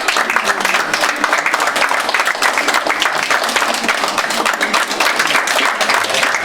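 Audience applauding: dense, steady clapping that keeps an even level throughout.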